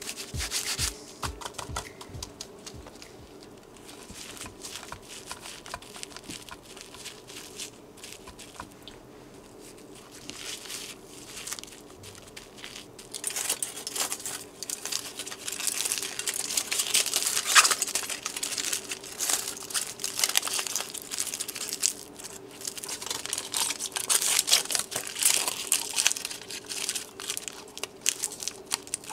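Aluminium foil being crumpled and folded by gloved hands around the tails and fins of whole salted sea bream to shield them from burning during grilling. The crinkling is faint at first and grows loud about halfway through.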